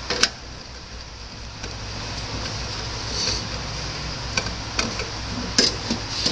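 Scattered clicks and light knocks of hands handling a desktop computer tower's parts and screws, over a steady low hum that grows louder about two seconds in.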